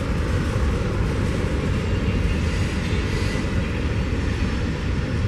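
Freight train cars rolling past, a steady noise of steel wheels on rail.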